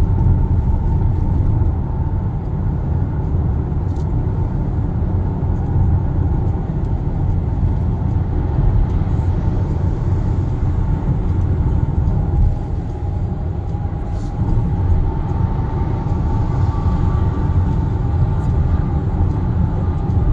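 Steady cabin noise of a Kia Sportage (NQ5) cruising at about 95 km/h on a concrete expressway: a low tyre-and-engine rumble with a faint steady hum over it.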